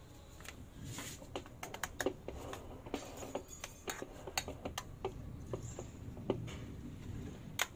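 Irregular light clicks and taps of a spatula knocking against a metal cake ring as chocolate mousse is spread inside it.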